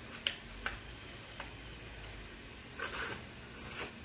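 Small plastic toys and their packaging handled on a hard floor: scattered light clicks and rustles, with a louder crinkle of plastic near the end.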